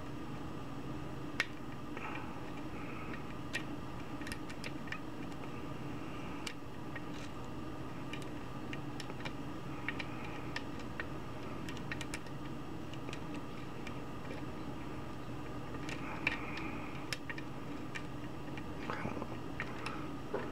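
Faint, irregular small clicks of a pick working the pins of a spool-pinned pin-tumbler lock held under light tension, over a steady low background hum.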